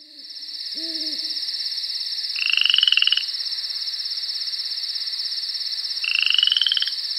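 Night-time nature sound effect: a steady high-pitched insect trill, with frogs croaking twice, about two and a half seconds in and again near the end, and a short owl hoot about a second in.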